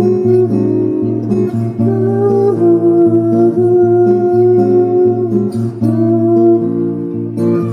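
Live band music in an instrumental passage: acoustic guitar strumming over a steady bass, with held melody notes that step from pitch to pitch.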